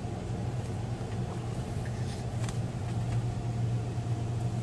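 Steady low hum heard from inside a car's cabin in a touchless conveyor car wash: the car's idling engine together with the wash's machinery. A few faint clicks about two seconds in.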